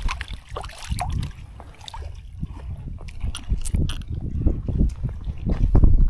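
Water splashing as a hooked speckled trout is swung up out of shallow water and handled, with sharp drips and ticks. Under it runs an uneven low rumble, loudest near the end.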